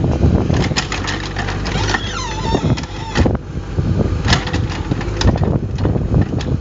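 Mini excavator's diesel engine running steadily while its cone splitter drives into a knotty beech log, with repeated sharp cracks as the wood splits and a wavering squeal about two seconds in.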